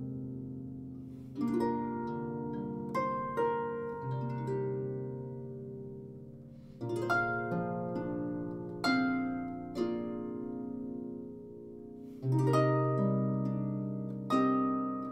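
Stoney End Marion lever harp played solo at a slow tempo: plucked melody notes and chords over low bass strings, each struck group ringing on and fading before the next.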